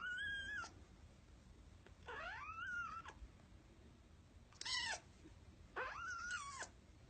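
A cat meowing four times, a few seconds apart: high-pitched calls, each under a second long, that rise and then fall in pitch.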